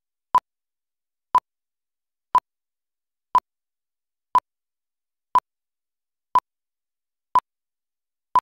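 Countdown leader beeps on a broadcast slate: a short, identical test-tone beep once every second, one for each number of the countdown, nine in all.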